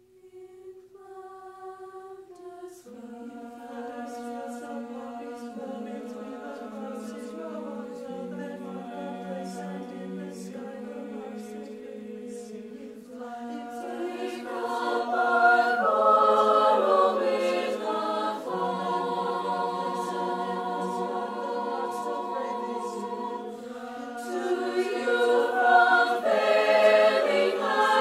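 High school choir singing a cappella. A few quiet voices open, the full choir joins about three seconds in, and the sound swells louder about halfway through and again near the end.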